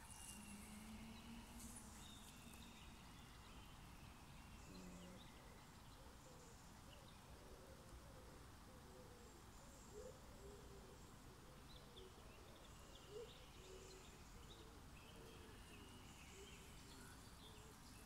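Near silence with faint birds calling: scattered high chirps, and from about four seconds in a long run of short low notes.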